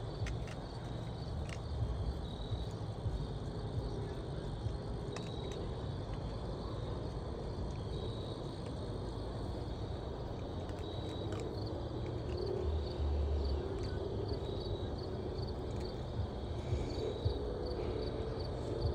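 Outdoor ambience: short high chirps repeating over and over from small calling creatures, over a steady low rumble.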